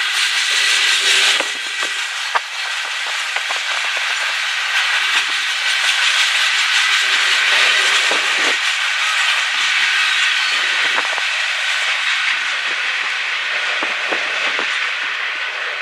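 Loaded freight hopper cars rolling past: a steady rush of steel wheels on rail, with a few sharp clicks scattered through it. It eases slightly near the end as the last car goes by.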